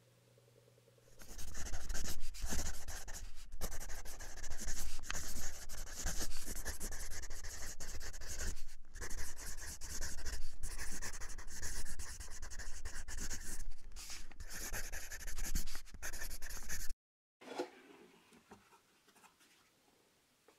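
Marker pen scribbling on a whiteboard, a drawing sound effect of rapid scratchy strokes with short breaks over a low rumble, which cuts off abruptly. Faint handling noises follow.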